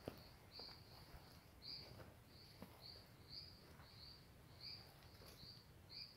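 Faint, regular high-pitched chirping from a small calling animal, about two chirps a second, with a few soft footsteps on a dirt trail.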